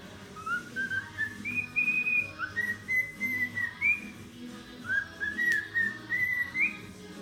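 Cockatiel whistling a tune: phrases of short whistled notes, many sliding up at the start and stepping higher through each phrase. A single sharp click comes about five and a half seconds in.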